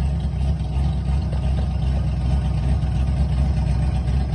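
Drift car's engine idling steadily, with a deep, even note and no revving.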